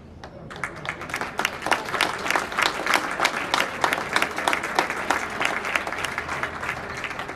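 Applause from a small crowd of spectators, a quick run of separate hand claps that starts about half a second in, builds, and thins out near the end: clapping for an injured player who is back on his feet.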